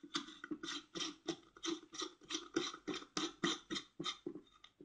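A clear glass light bulb being screwed into a lamp holder by hand: a quick run of short scratching twists, about four or five a second, stopping just before the end.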